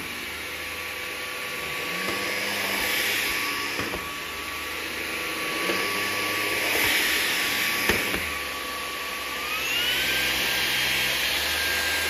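Levoit cordless pet-hair stick vacuum with a motorised brush head running on a shaggy rug, its motor whining steadily while the rush of air swells and fades with each push and pull. There are a couple of sharp clicks, and about three quarters of the way through the motor's whine steps up in pitch and holds there.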